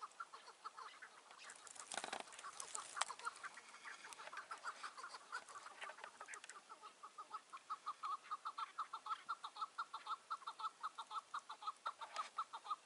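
Chukar partridges calling: scattered calls at first, then from about six seconds in a rapid, even run of clucks, about five a second. There is a brief rustle about two seconds in.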